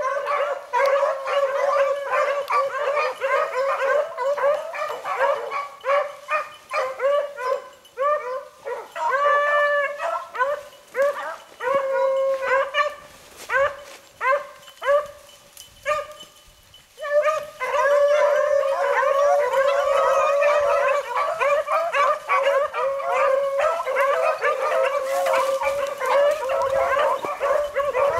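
A pack of beagles baying in chorus while running a rabbit, one overlapping call after another, with a brief lull about sixteen seconds in.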